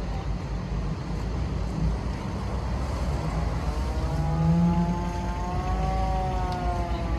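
Engine running with a steady low rumble. From about halfway through, a pitched tone with several overtones slowly rises and then falls.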